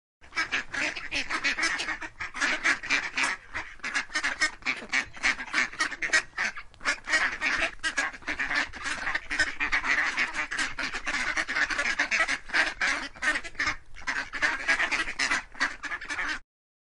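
A flock of birds calling all at once: a dense, continuous clamour of quick overlapping calls. It starts and stops abruptly.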